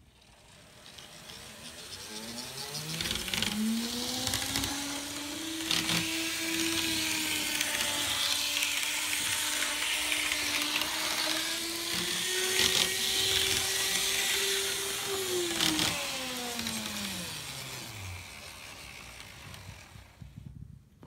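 N scale Atlas EMD GP7 model locomotive's electric motor whining as it runs around the track. The whine rises in pitch as the locomotive speeds up, holds at speed, then falls away as it slows to a stop. Wheel and gear running noise goes along with it, broken by a few sharp clicks.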